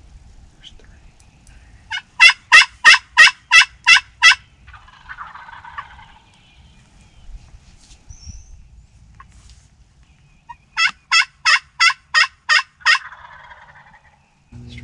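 Two loud series of wild turkey yelps, each of seven or eight notes at about three a second, one about two seconds in and one about eleven seconds in. Each series is followed by a fainter, rattling turkey call.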